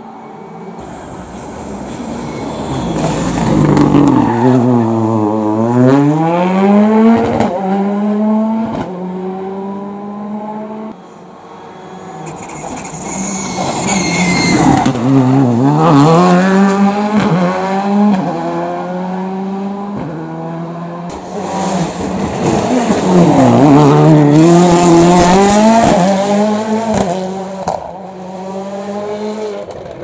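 Three rally cars, a Ford Fiesta and a Škoda Fabia R5 among them, pass one after another through a hairpin. Each engine note drops as the car brakes for the bend, then climbs through the gears as it accelerates away, with sharp cracks from the exhaust off the throttle. There is a brief tyre squeal about halfway through.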